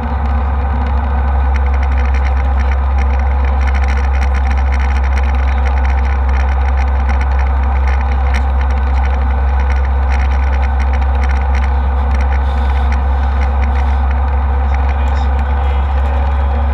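Steady cabin noise of a jet airliner in flight: a loud, even, deep drone of engines and rushing air, with faint light ticks scattered through it.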